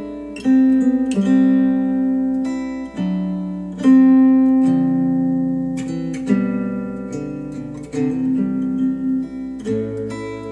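Acoustic guitar music, plucked notes and chords that ring out and fade, with no singing, played back through KEF R3 bookshelf speakers.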